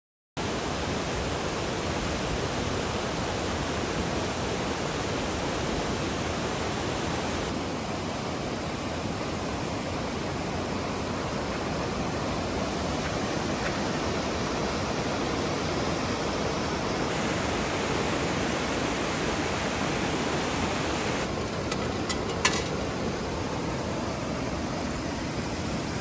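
Waterfall rushing: a steady, even noise of falling water that starts abruptly just after the beginning, with one sharp click near the end.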